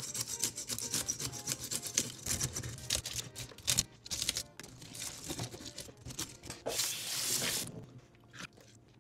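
Metal fish scaler scraping in quick, rapid strokes along the scales of a freshwater drum, with scales flicking off into a stainless steel sink. The strokes thin out after about four seconds, and a short hiss comes about seven seconds in.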